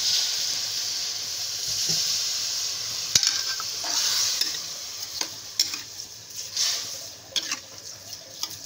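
Steel ladle stirring sugar and boiled mango slices in an aluminium wok, with sharp scrapes and clinks against the pan. Under it, a steady hiss of a little water added to the hot pan, fading out about halfway.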